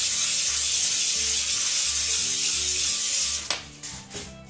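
A red-dot dovetail mounting plate rubbed by hand in circles on 320-grit sandpaper, a steady scratchy sanding hiss as its underside is smoothed to fit the slide. The sanding stops about three and a half seconds in, followed by a few light clicks as the plate is set down.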